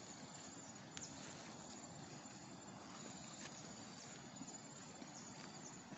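Faint outdoor ambience: a quiet, even hiss with a few light ticks scattered through it.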